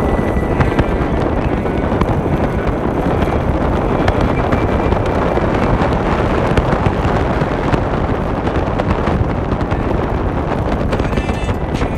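Steady wind buffeting the microphone on a moving motor scooter, over the hum of the scooter and its tyres on the road.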